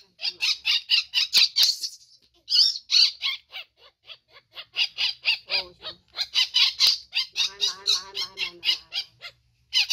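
Baby macaque squealing: a rapid run of short, high-pitched shrieks, several a second, with short lulls about two and four seconds in.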